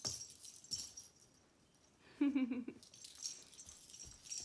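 A baby's toy rattle shaken by hand, giving a few bursts of jingly rattling, with a short toddler vocal sound about two seconds in.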